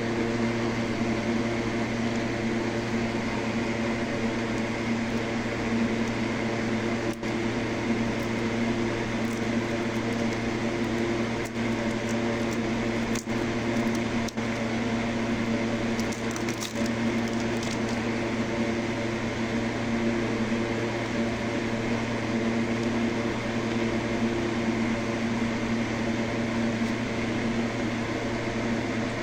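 Steady machine hum, like a running fan or appliance motor, holding the same pitch throughout. A few faint clicks and taps from small electronic parts being handled come in the middle.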